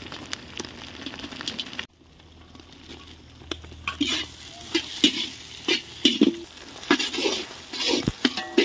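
Food sizzling in hot oil in a pan. After a sudden cut about two seconds in, a utensil knocks and scrapes against the pan about twice a second as the food is stirred.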